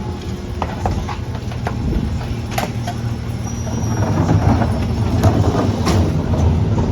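CNG Mack LR garbage truck engine running steadily, growing louder about four seconds in, with scattered sharp metallic clanks and knocks.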